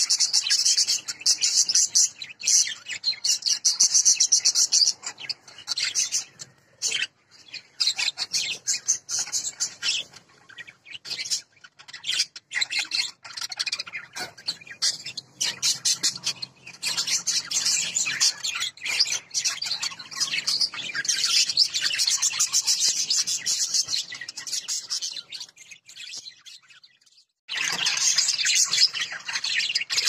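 A flock of budgerigars chirping and chattering in quick, overlapping, high-pitched notes, with a short pause shortly before the end.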